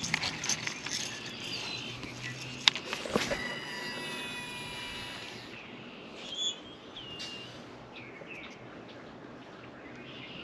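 Birds chirping, with a few sharp clicks and taps in the first three seconds.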